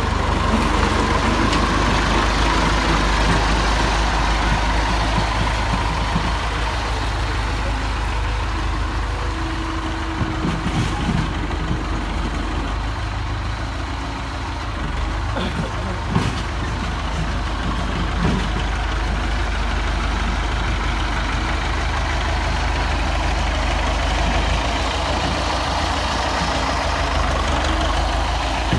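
Tractor engine running steadily, a little louder in the first few seconds, with a short knock about 16 seconds in.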